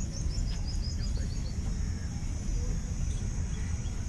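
Outdoor ambience in which a bird sings a quick run of short high notes falling in pitch during the first second and a half. Underneath is a steady high insect buzz and a low rumble.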